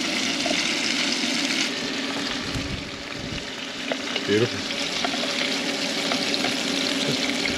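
Snapper fillets sizzling steadily in butter sauce in a pan on an induction cooker, with metal tongs scraping and tapping in the pan as the fillets are lifted out.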